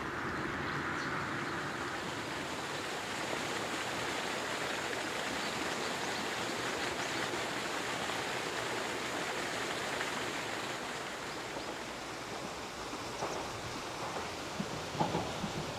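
Steady outdoor hiss of water, as of rain or a stream, even and unbroken, with a few faint knocks near the end.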